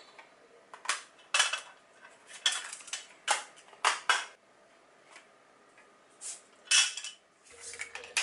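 Sharp plastic clicks and clacks from handling a portable cassette player and a plastic cassette case: about a dozen irregular clicks, a lull in the middle, then a louder cluster near the end.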